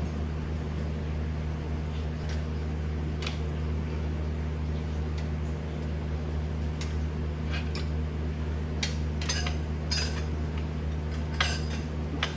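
Metal tyre levers clinking against a motorcycle wheel rim as an inner tube is pulled out and the tyre bead is worked off, in scattered sharp clinks that come more often in the last few seconds. A steady low mechanical hum runs underneath.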